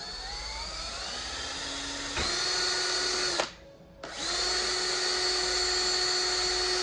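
Cordless drill boring a hole through a metal bottle cap: the motor whine rises as it speeds up, then runs steady at full speed. It stops briefly about three and a half seconds in, then starts again and runs steadily.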